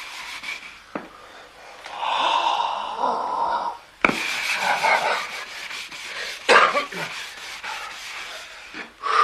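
Rubbing and scraping strokes on a wooden parquet floor being polished by hand, with a few sharp knocks in between.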